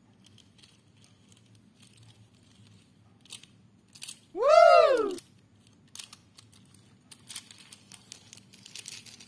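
Light clicks and taps of small die-cast toy train engines being picked up and set down on plastic track. About four and a half seconds in, one loud whooping tone rises and then falls in pitch over less than a second.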